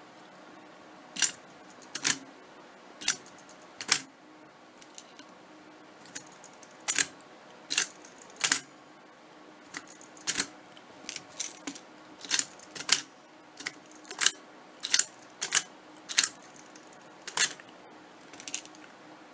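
Plastic clicks from a Kuru Kuru Janken candy toy as its hand-shaped top is turned round by finger: about twenty sharp, irregular clicks, with a pause of a few seconds after the first four.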